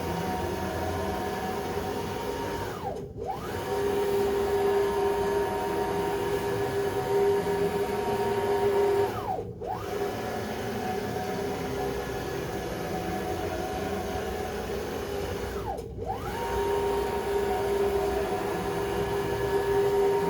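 CNC router axis drives (NEMA 34 motors on ball screws) whining through rapid traverse moves. Three times, about every six seconds, the whine glides down in pitch to a brief stop and climbs straight back up as an axis reverses direction.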